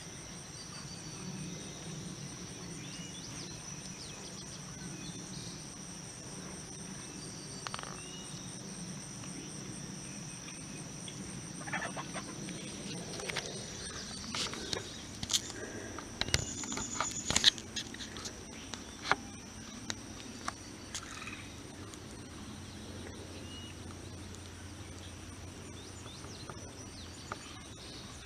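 Steady, high-pitched insect chorus that runs without a break. A little before halfway a run of sharp clicks and taps begins, the loudest a little past halfway.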